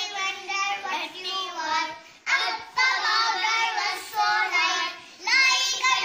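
A young girl singing in a high child's voice, a run of short phrases with held notes and brief pauses between them.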